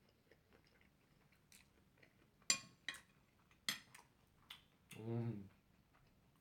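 A metal spoon clinks sharply against a china plate and sauce bowl about four times, then a short hummed "mm" comes from the eater about five seconds in.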